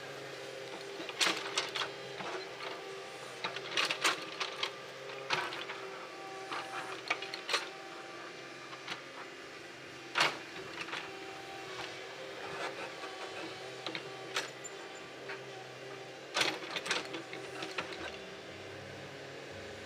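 Kobelco SK200 excavator's diesel engine running steadily, with irregular sharp knocks and clanks from the working machine, the loudest about a second in, around four and ten seconds, and near the end.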